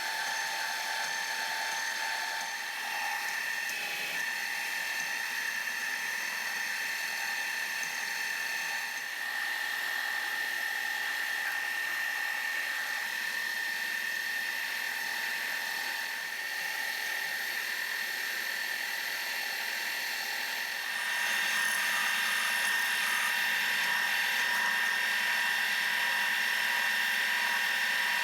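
Cincinnati milling machine's spindle and gear train running a center drill, with a steady high gear whine. The whine grows louder about 21 seconds in.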